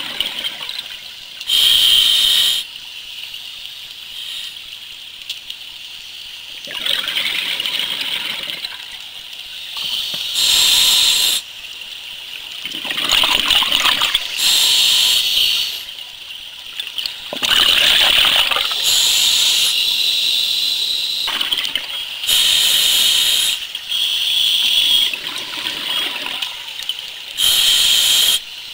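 Scuba diver breathing through a regulator underwater: loud rushes of exhaled bubbles about a second long, recurring every few seconds, with a quieter hiss between.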